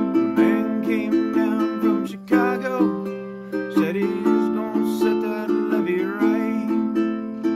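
Ukulele being played by hand: strummed chords and picked notes in a steady rhythm.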